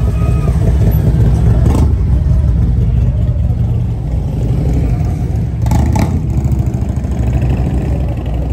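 Motorcycle engines running on the street, a steady deep rumble that swells and eases, with two brief sharper noises about two seconds in and near six seconds.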